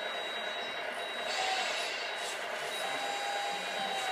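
Small electric motors of a radio-controlled CAT 324D excavator model whining as its boom and bucket move, the whine coming and going in short stretches.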